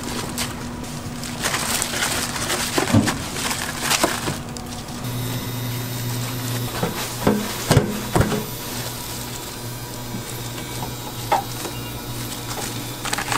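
Cooking at a tteokbokki and fried-food stall: scattered knocks and clatter of utensils over a steady frying hiss, with a low hum starting about five seconds in.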